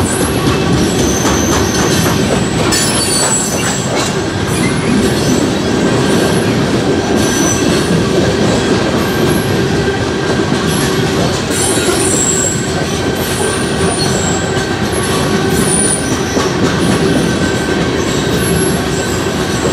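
Freight train of open-top coal hopper cars rolling steadily past at close range: a continuous heavy rumble and rattle of the cars, with short high-pitched wheel squeals coming and going and the clack of wheels over the rail joints.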